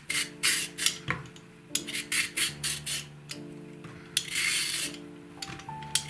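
A Y-shaped vegetable peeler scraping strips of skin off a raw carrot in quick repeated strokes, with one longer stroke near the middle, over background music.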